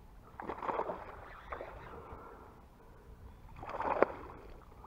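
A hooked yellow peacock bass thrashing and splashing at the water's surface beside a kayak, loudest about four seconds in, with shorter, quieter splashes earlier.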